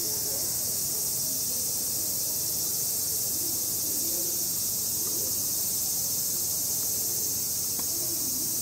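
Dense chorus of cicadas: a steady, high-pitched drone that does not let up.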